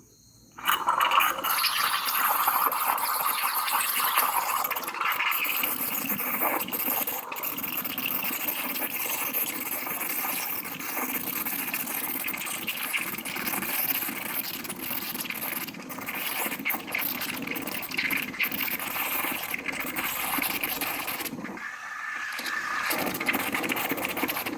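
Steam wand of a Morphy Richards espresso/cappuccino machine hissing steadily as it steams and froths milk in a cup; it starts about half a second in and dips briefly near the end.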